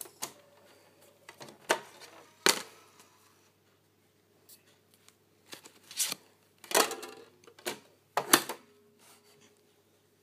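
Sharp plastic clicks and clacks from handling a CD and a portable CD boombox while a disc is loaded into the player, about seven separate knocks with the loudest near the start and near the end.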